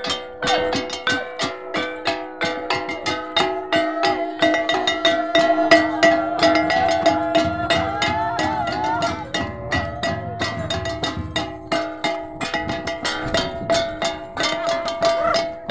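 Timorese babadok hand drums beaten rapidly with sticks in a steady rhythm over several steady ringing pitches, with voices singing over them in the middle.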